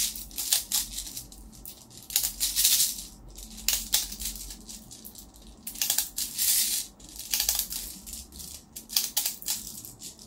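Airsoft BBs rattling and clicking as they are pushed from a handheld BB speedloader into a long 50-round gas pistol magazine, in irregular bursts of rapid clicks with short pauses between.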